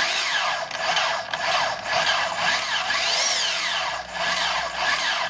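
HiKOKI 36 V brushless plunge-cut track saw running free with its trigger pulsed, so the motor whine rises and falls several times as the blade slows and picks up again. On battery power the saw restarts without waiting for the blade to stop, as expected.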